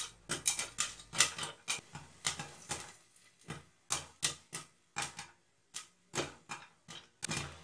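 Popcorn popping in a covered kadhai: sharp single pops, several a second at first, thinning to scattered pops with gaps between them, as the batch nears the end of popping.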